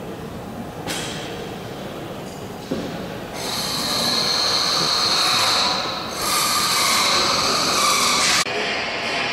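A pneumatic air tool whining with a rushing hiss. It starts about three seconds in, eases off briefly around the middle, runs again, and cuts off suddenly near the end.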